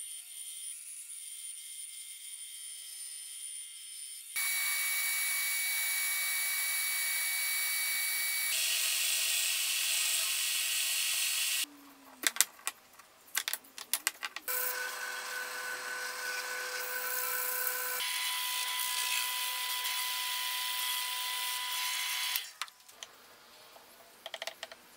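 Bandsaw running as it cuts plywood, then two louder stretches of a power tool running steadily, each starting and stopping abruptly, with a few seconds of knocking and clatter from handling the wood between them. The last few seconds are quiet apart from a few light clicks.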